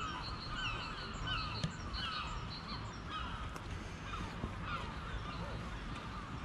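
Many birds calling at once, short chirping and cawing calls overlapping over a low steady rumble. A single sharp click about one and a half seconds in.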